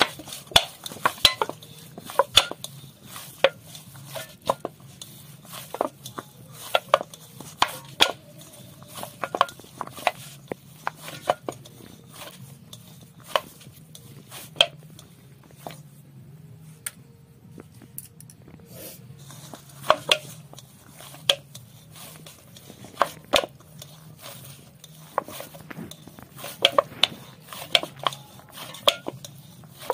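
Paratha dough being kneaded by hand in a bowl: sharp, irregular knocks and clinks against the vessel, roughly one a second, easing off for a few seconds midway.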